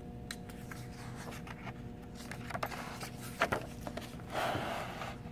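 A page of a hardcover picture book being turned and smoothed down: light paper clicks and taps, a sharper tap about three and a half seconds in, then a short paper swish. A faint steady hum runs underneath.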